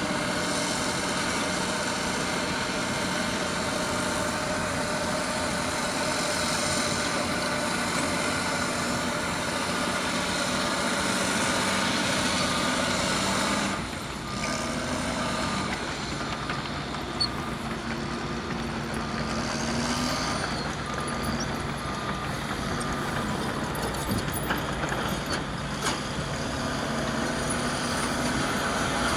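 Caterpillar D6R bulldozer's diesel engine running under load, dipping and changing pitch about halfway through. From then on a reversing alarm beeps about once a second for some twelve seconds.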